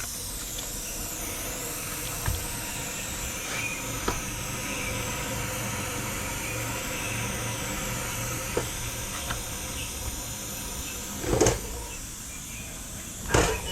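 Steady hiss with a few faint clicks, then two short, louder knocks near the end: parts and tools handled while a KLR 650's rear wheel is refitted.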